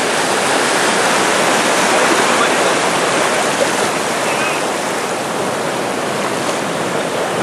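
Steady rushing of sea water: surf washing and churning at the shore, a little louder in the first few seconds.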